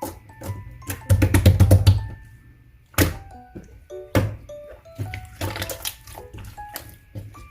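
Clear jiggly slime being squished and poked, making wet sticky pops and clicks, with a dense burst of squelching about a second in, over background music with a light melody.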